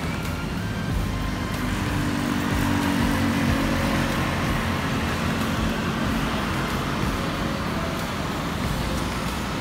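Street traffic at an intersection: motor scooters and cars passing in a steady stream, with engine hum swelling for a few seconds in the middle.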